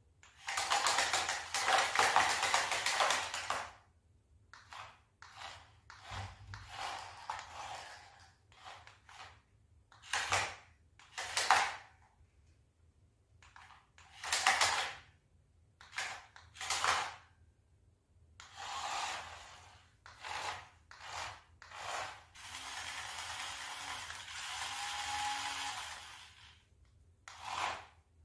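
Toy RC stunt car's small electric motors whirring in stop-start bursts, some brief and some lasting a few seconds, as it drives, spins and flips on a tiled floor.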